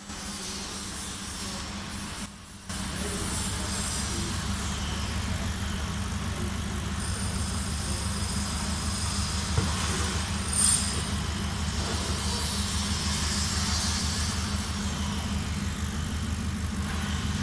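CO2 laser engraving machine running as it engraves glass: a steady low hum with hiss above it, and a thin high whine from about seven to eleven seconds in while the laser head travels. The level dips briefly about two seconds in.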